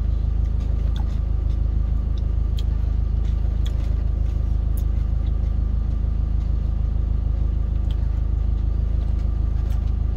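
Truck engine idling steadily, heard from inside the cab as an even low rumble. A few faint clicks of a plastic spoon against a yogurt cup come through at scattered moments.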